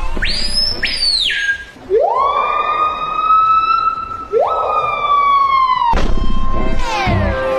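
A short high whistle that rises and falls, then two siren-like wails, each sweeping quickly up to a held tone that sags slightly before cutting off.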